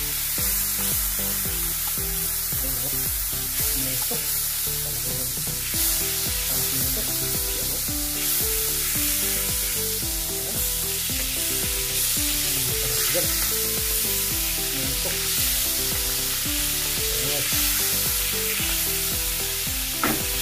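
Margarine melting and sizzling in a hot wok, with a steady hiss and the scrape of a spatula stirring it. Background music plays underneath.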